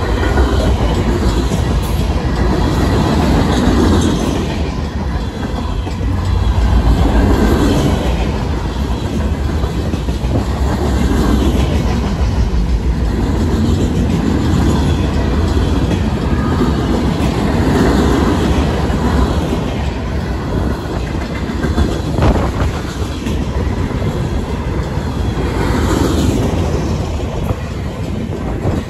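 Freight train cars rolling past close by: a steady rumble with wheels clattering over the rail joints, swelling as each car goes by, and a sharp clank about two-thirds of the way through. The grade-crossing bells ring throughout.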